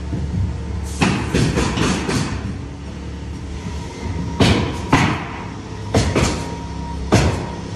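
Pneumatic coil roofing nailer firing nails through asphalt shingles: a quick run of several sharp shots about a second in, then single shots every second or so, over a steady low rumble.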